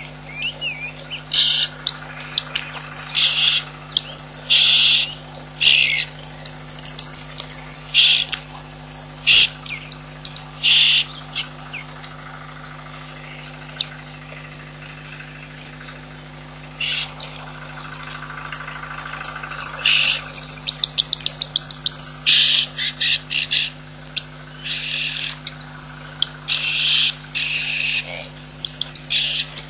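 Wild birds calling: many short, high chirps and rapid trills in quick succession, over a steady low hum.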